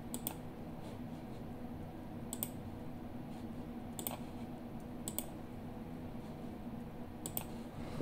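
A few widely spaced clicks from a computer keyboard's keys, some in quick pairs, over a faint steady low hum.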